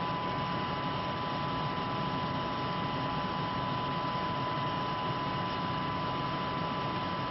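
Steady hiss with a constant high hum and no changes: International Space Station cabin ventilation noise, picked up through the HamTV video downlink.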